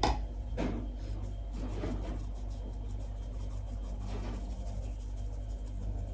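Flour being sifted through a sieve over a bowl of batter: a few soft rubbing, shaking strokes, over a steady low hum.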